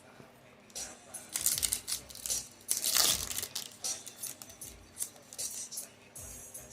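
A foil trading-card booster pack being torn open and crinkled, the loudest rip about three seconds in, followed by lighter rustling of the wrapper and cards.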